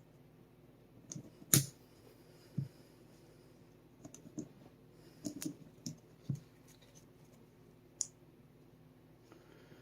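Small parts of a Sig Sauer P365 pistol's striker assembly clicking and tapping against each other as they are handled and fitted together, with one sharp click about one and a half seconds in. Irregular clicks follow, most of them between four and six and a half seconds.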